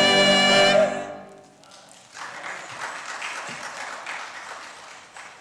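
Church choir holding its final chord, which stops about a second in. After a short gap the congregation applauds, fading toward the end.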